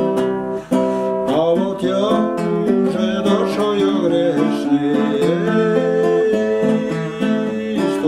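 Nylon-string classical guitar strummed in a steady rhythm, accompanying a Russian Cossack song, with a man's voice singing along at moments.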